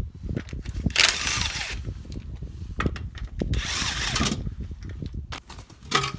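Power tool run in short bursts on car suspension work: two main runs of under a second, about a second in and around four seconds in, with a brief one in between.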